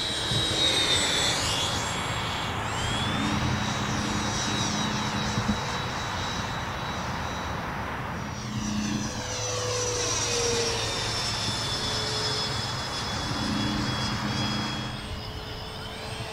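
80 mm electric ducted fan of a Freewing Mirage 2000 RC jet whining at high throttle as the model flies fast passes. The whine slides down in pitch as it goes by, about a second in and again about midway.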